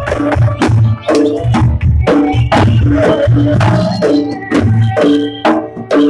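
Jaranan accompaniment music: a fast, steady beat of drum strokes over repeating pitched metallic notes and low thuds.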